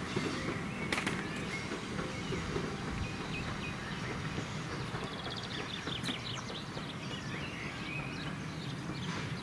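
Outdoor ambience: small birds chirping over a steady low rumble. There are a couple of sharp knocks in the first second, and a quick run of ticking about five to six seconds in.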